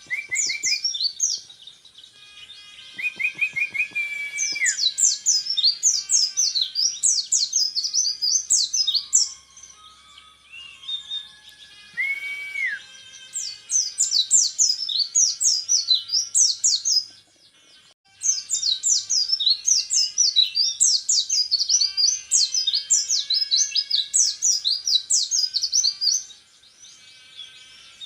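Orange-headed thrush (peleci) singing: three long runs of rapid, high, sharply sweeping notes lasting several seconds each, the rapid-fire "tembakan repet" delivery prized in song contests, with a few slower, lower whistled notes between the runs.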